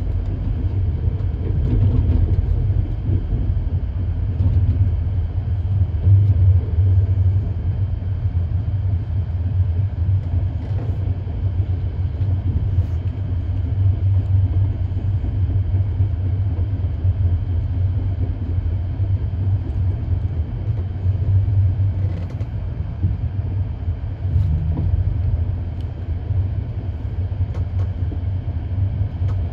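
Low, steady rumble of a PKP passenger train running, heard from inside the carriage: wheels on the rails and running gear.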